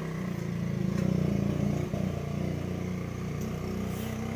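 A small engine running steadily, its pitch wavering slightly, a little louder about a second in.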